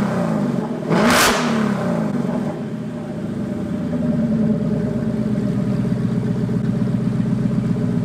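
2016 Ford Mustang GT's 5.0 V8 running with the rear exhaust section removed, so it exhausts open behind the mid-pipe. A sharp rev blip about a second in, then it settles to a steady, loud idle.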